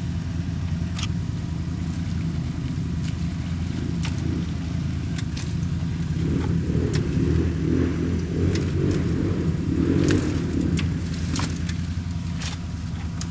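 ATV stuck in mud, its engine running steadily. About six seconds in a louder, rougher rumble builds for some five seconds and then eases, with scattered sharp clicks throughout.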